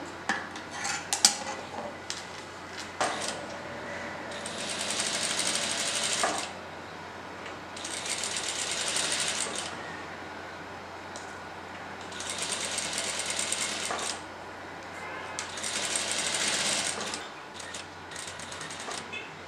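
Sewing machine stitching through layered fabric in four runs of about two seconds each, stopping between runs as the fabric is repositioned. A few sharp clicks come in the first few seconds.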